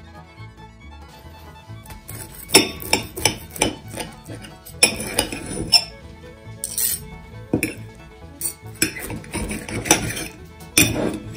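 Steel knife and fork cutting a breadcrumb-coated zucchini fritter on a china plate, clinking against the plate again and again from about two seconds in, over background music.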